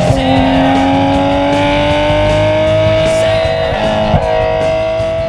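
Sports car engine accelerating, its pitch climbing slowly and steadily, mixed with guitar music.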